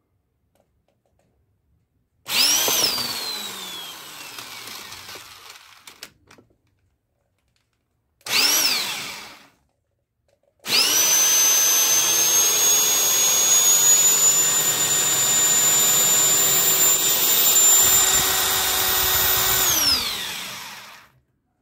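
Electric drill spinning the shaft of a Delphi DFP1 common-rail high-pressure diesel pump through a socket, priming the pump with fuel until no air bubbles are left. A short run that whines up and winds down with falling pitch, a brief blip, then a long steady run of about ten seconds that winds down near the end.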